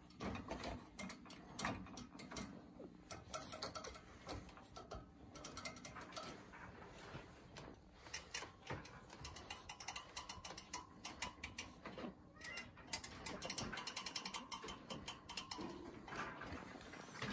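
Wire pet cage rattling and clicking in rapid, irregular runs as kittens paw at a feather wand toy pushed through its bars.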